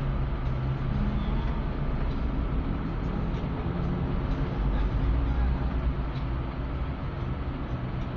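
A vehicle under way: a steady low rumble of engine and road noise, with a few faint ticks and rattles.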